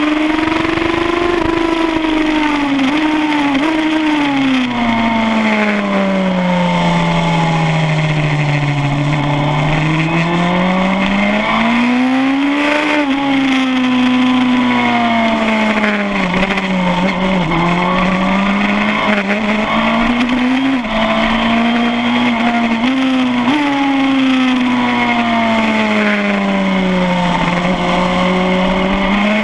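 Suzuki GSX-R1000 K7's inline-four engine heard from onboard at racing speed, its pitch swelling and sinking in long sweeps with brief quick steps, over steady wind rush.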